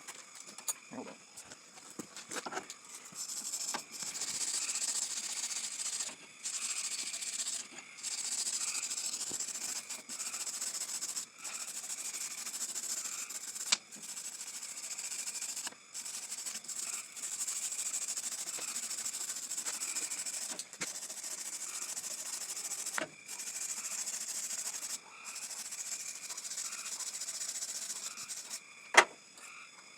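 Wire brush scrubbing old gasket and RTV residue and rust off the thermostat housing mating surface of a Chevy 250 straight-six, in repeated stretches of scratchy hiss with short pauses. A single sharp knock near the end.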